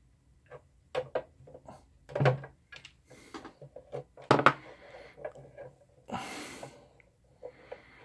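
Hands handling wire and hand tools on a wooden workbench: a string of light clicks and knocks, a sharp knock about four and a half seconds in, and a brief scraping rustle a little after that.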